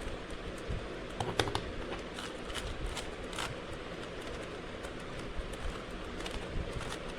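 Rubik's cube being turned by hand: irregular light plastic clicks and clatter as its layers are twisted, over a steady low background noise.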